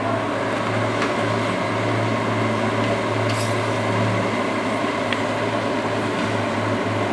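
Kubota U30-5 mini excavator's diesel engine running steadily with a low hum while the hydraulic arm swings and dumps a bucket of soil, a short hiss about three seconds in.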